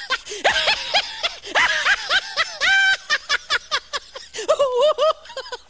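A person laughing: a long, unbroken run of short, rapid laughing bursts, dubbed over footage of a lion opening its mouth.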